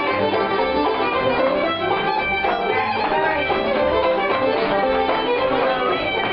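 Live old-time string band playing a square-dance tune: fiddle lead over strummed and plucked strings, with an upright bass keeping a steady beat.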